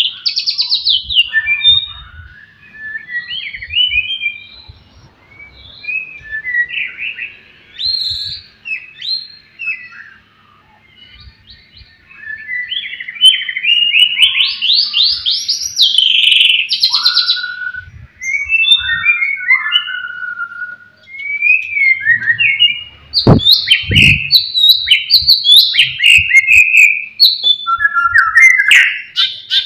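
White-rumped shama singing a varied song of whistled phrases, rapid trills and quick sweeps. There is a quieter pause partway through, then loud, dense phrasing.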